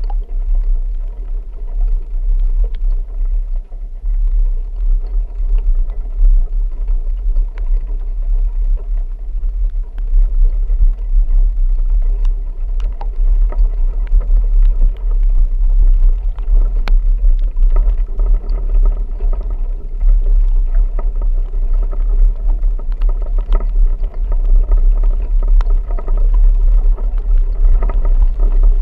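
A vehicle driving, heard as a steady loud low rumble of engine and road, with scattered sharp clicks and knocks over it.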